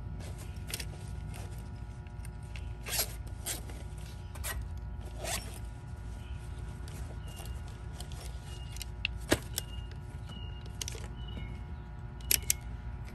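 Scattered clicks and rustles of wires and spade terminals being handled and pulled off the compressor circuit, over a faint steady hum.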